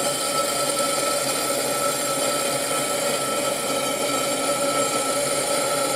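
Edge of a fused glass piece being ground against a wet, spinning diamond lap wheel: a steady, loud grinding noise with several steady high tones running through it.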